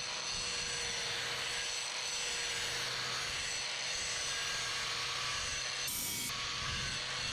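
A power tool grinding the leaf-spring steel of a knife blade: a steady hiss with a faint constant hum.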